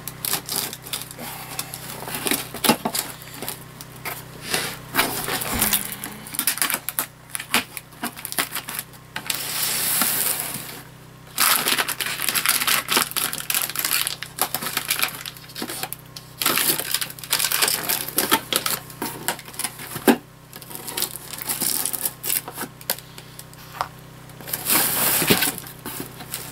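A shipping box being unpacked: cardboard and packing material rustling and crinkling, with irregular small clicks and knocks and a few longer, louder spells of rustling.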